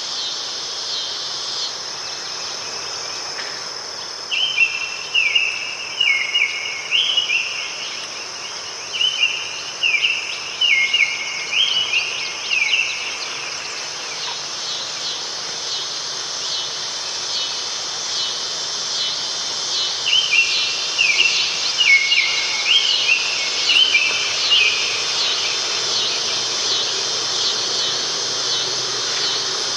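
A steady, high insect chorus with fine rapid pulsing, over which a bird sings runs of repeated short falling notes: one long run from about four seconds in to about thirteen, and another from about twenty to twenty-five.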